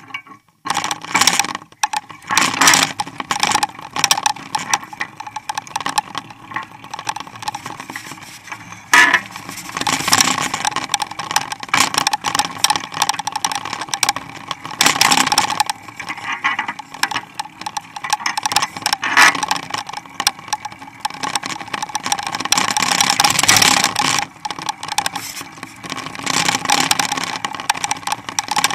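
Mountain bike with a Springer dog-running attachment rolling along pavement, its metal clips and harness hardware rattling and clinking unevenly as the dogs pull alongside.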